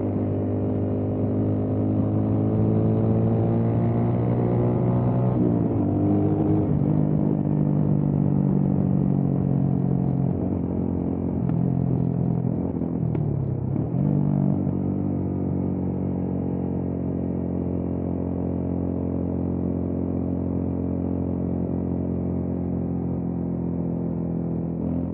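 Motorcycle engine running under way, steady for most of the time, its pitch dropping and climbing again a few times as it shifts gears or eases off and pulls again.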